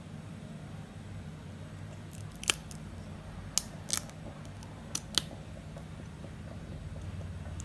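Cooked mussel shells clicking against each other as they are handled and pried apart: about five short, sharp clicks in the middle stretch, over a steady low hum.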